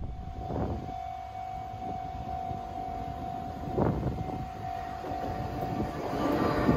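A Japanese level-crossing warning bell rings as a steady tone, with two brief louder swells of passing traffic. Near the end, the rumble of an Enoden train rolling over the crossing rises and becomes the loudest sound.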